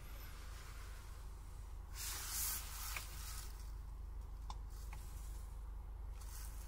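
Low steady hum of a Mercedes-Benz GLC 220d's four-cylinder diesel idling, heard from inside the cabin. A brief hiss comes about two seconds in, and there are a few soft clicks in the second half.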